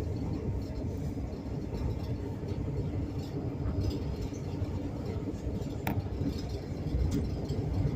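Passenger train running on the rails, heard inside a compartment carriage: a steady low rumble of wheels on track, with one sharp click about six seconds in.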